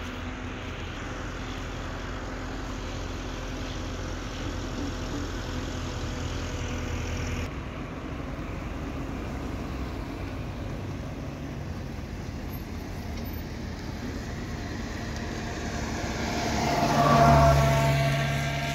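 Steady road-traffic noise, with one vehicle passing close near the end, swelling louder and then fading.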